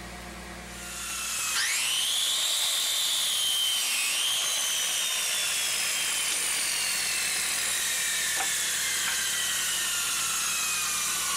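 Power miter saw running and cutting a walnut board to length: a high whine with a hiss starts about a second in and rises in pitch as the motor spins up, dips briefly about four seconds in, then slowly falls.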